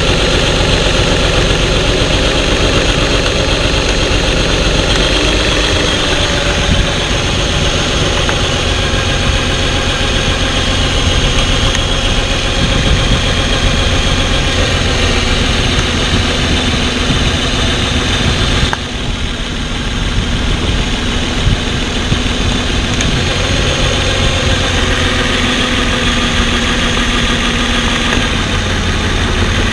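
A pickup truck's engine idling with a misfire, traced to a failing ignition coil. The sound of the engine changes a few times as the individual coil connectors are unplugged, with a sudden drop in level about two-thirds of the way through.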